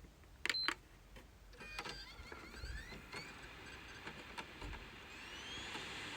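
PlayStation 5 console starting up: a brief sound about half a second in, then faint whines that rise in pitch as it spins up. This is a normal boot with no error beeps, after its reprogrammed BIOS chip cured the three-beep fault.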